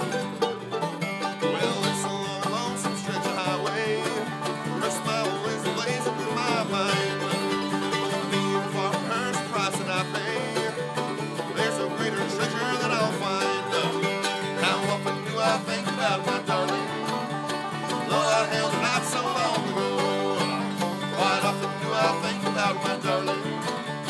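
Bluegrass trio playing live on banjo, mandolin and acoustic guitar, with the banjo rolls prominent over steady guitar strumming.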